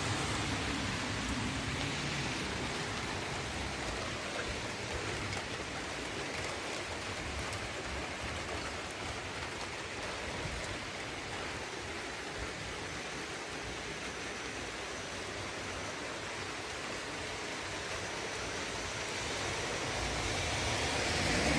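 Heavy rain falling steadily, an even hiss that grows a little louder near the end.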